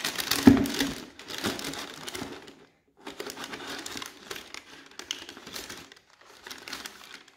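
Tissue paper crinkling and rustling in a cardboard shoebox as a sneaker is lifted and turned over it, in three stretches with short pauses, with a sharp knock about half a second in.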